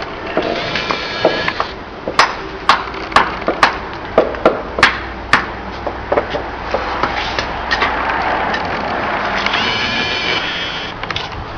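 A run of about eight sharp knocks, roughly two a second, lasting about three seconds, like a tool striking while the seal on a charcoal carbonization furnace is worked, over steady background noise.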